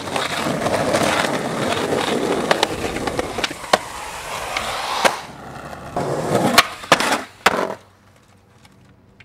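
Skateboard wheels rolling on concrete and the board scraping along a concrete ledge, with a few sharp clacks. About six seconds in come a louder run of scraping and several hard clacks of the board hitting concrete. It goes quiet near the end.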